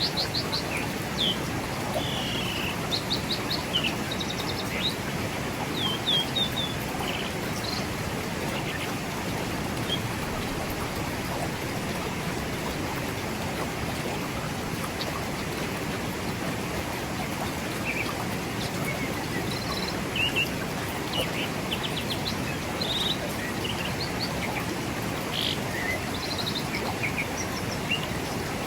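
Forest river running steadily over rocks, with birds chirping on and off above it in short high calls and trills, busiest near the start and again near the end.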